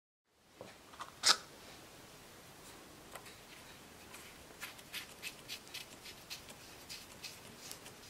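Small clicks as the fill cap on a portable air compressor's crankcase is twisted by hand: one sharp click about a second in, then a run of lighter clicks about three a second in the second half.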